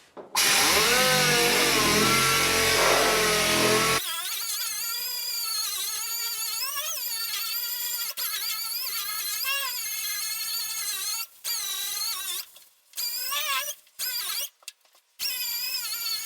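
Dual-action sander working on a truck cab's sheet metal: a loud hissing whine for the first few seconds, then a whine that wavers in pitch, stopping and starting abruptly several times near the end.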